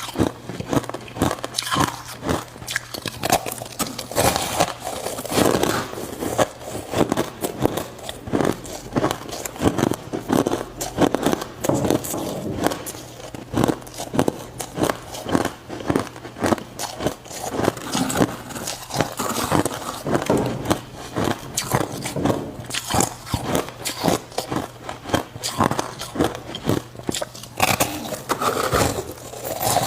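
Ice being bitten and chewed close to the microphone: a run of sharp, crackly crunches, several a second, as the pieces break between the teeth.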